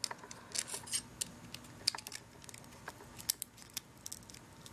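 Flathead screwdriver prying at a phone's metal RF shield on the circuit board: light, irregular metal clicks and small scrapes as the tip works under the shield's edge.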